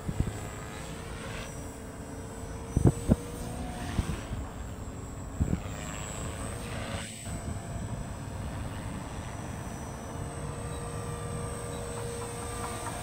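Beam 450 RC helicopter flying at a distance, its rotor and motor giving a steady drone with a thin high whine. A few low thumps break in, two close together about three seconds in and another a little later.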